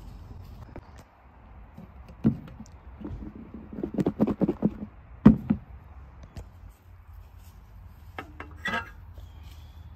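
Clear plastic Sistema food container with dressed lettuce being handled and shaken: a sharp knock, then a quick run of thuds and rattles for about a second as the salad is tossed inside, then another sharp knock. A few lighter clicks follow near the end.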